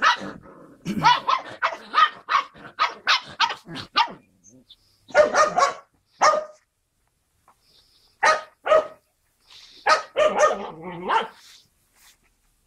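Skye Terrier puppies yapping in quick runs of short, high-pitched barks, about three a second, with brief pauses between the runs: playful barking while they wrestle.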